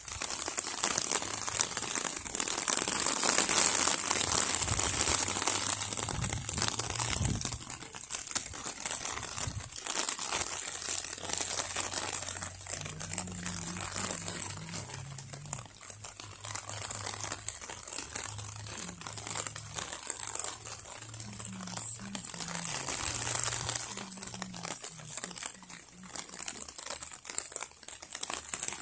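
Uneven crinkling rustle close to the microphone, swelling and fading with small clicks, loudest a few seconds in. A faint low hum that steps up and down in pitch runs under it through the middle.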